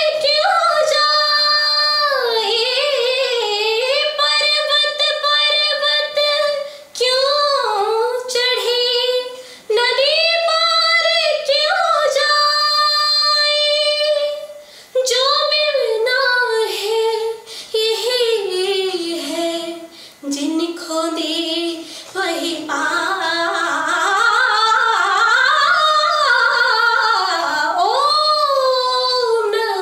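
A woman singing solo in phrases, with long held notes and ornamented glides and short breaks between phrases. The melody moves lower in the second half.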